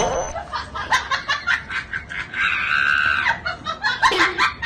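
A woman laughing and giggling in short bursts, with one long high-pitched squeal about two and a half seconds in.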